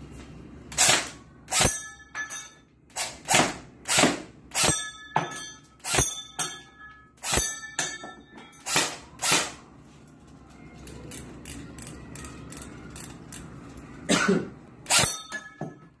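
AR-style airsoft rifle firing single shots, about a dozen and a half sharp cracks at irregular intervals, some followed by a short metallic ring. A pause of about four seconds comes in the middle, then a few more shots near the end.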